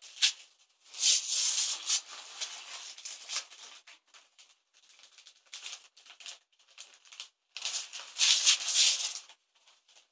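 Gift wrapping paper being ripped and crumpled off a box, in two loud spells of tearing and rustling, about a second in and again near the end, with lighter crinkling between.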